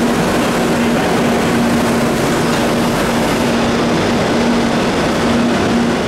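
Madrid Metro CAF 2000A-series train running alongside an underground platform and slowing, with steady wheel-on-rail rumble and a low electric hum. The hissing top of the noise eases off about halfway through.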